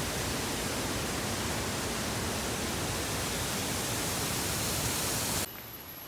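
Steady rush of water running over boulders in a rocky stream below a waterfall. It cuts off suddenly near the end to a much quieter background.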